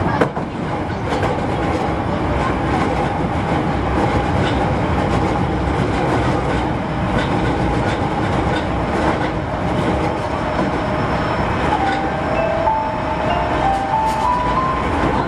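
Osaka Metro 31 series subway train running, heard from inside the car: a steady rumble of wheels on rail with clicks over the rail joints. From about twelve seconds in, the Hitachi SiC inverter's motor whine rises in steps.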